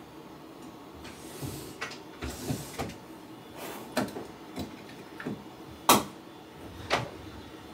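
Soft rustling and a string of short, sharp clicks as a hand strokes and scratches a cat's cheeks and chin against a fleece blanket. The loudest click comes about six seconds in, with another just after seven.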